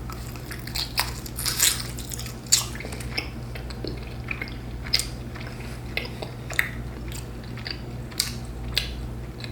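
Close-up eating sounds of spicy seafood: shells cracking, biting and wet chewing in short sharp crackles and smacks, over a steady low hum.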